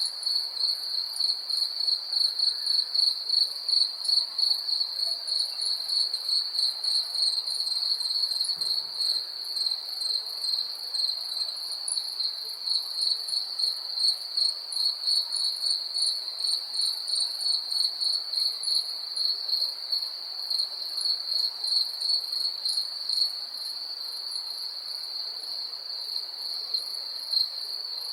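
Cricket chirping: a continuous high-pitched trill that pulses in loudness, settling steadier and a little quieter near the end.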